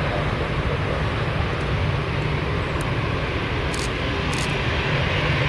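Jet airliner engines running, a steady rumble with hiss.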